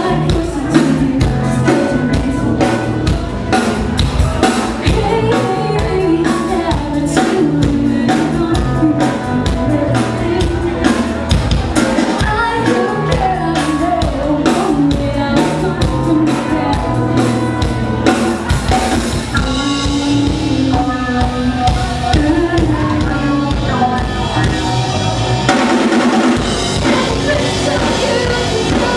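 A live rock band playing loud: a singer over guitars and a pounding drum kit.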